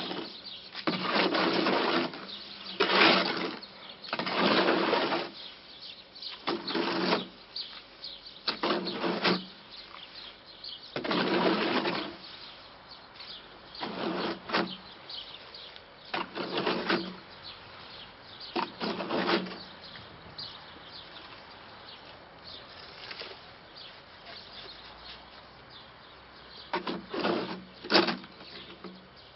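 A shovel scraping and churning through wet concrete in a metal wheelbarrow: a stroke every second or two, a pause of several seconds, then two more strokes near the end.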